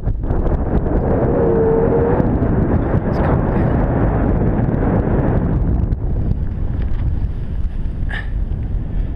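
Wind buffeting the microphone in a steady low rumble that eases somewhat about six seconds in, with a brief whistling tone about a second and a half in.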